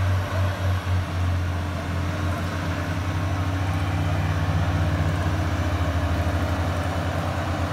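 A vehicle engine idling close by, a low, rapid pulsing that quickens slightly about three seconds in, with a fainter steady engine hum above it.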